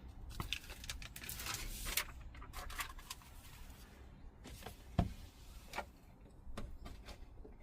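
Rustling and crinkling as a sheet of self-adhesive sound-deadening mat is handled against the van roof, with scattered clicks and one sharp knock about five seconds in.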